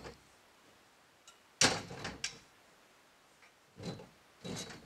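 Welded steel-tube boat canopy frame being shifted by hand: metal poles sliding and clunking in stiff, freshly painted pivots. There is a loud clank about a second and a half in with a click just after it, then two shorter, softer scrapes near the end.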